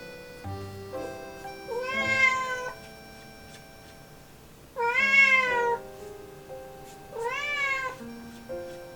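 Young cat meowing three times, each call rising and falling in pitch, its voice going through a change as it grows up. Background music plays under it.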